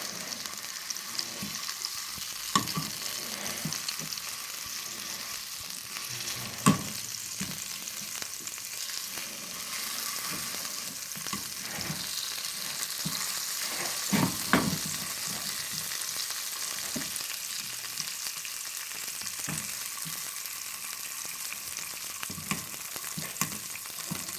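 Dried figs and grated garlic sizzling steadily in hot olive oil in a pan, with scattered knocks of a utensil against the pan as the figs are turned and pressed, the loudest about seven seconds in and twice in quick succession near the middle.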